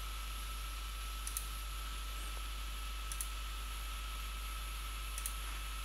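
Computer mouse clicking three times, about two seconds apart, each a quick double click. A steady hiss and a faint steady tone run underneath.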